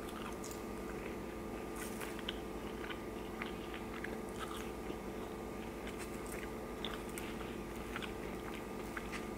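A person chewing and biting into crinkle-cut french fries: faint, scattered soft crunches and mouth clicks. A steady hum runs underneath.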